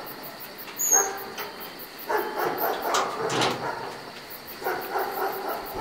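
A dog barking in several bursts, with a short sharp knock about a second in.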